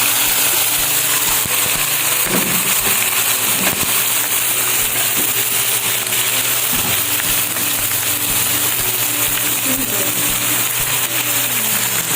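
Tuna sizzling and crackling as it fries in hot oil, with a few knocks from stirring in the pan.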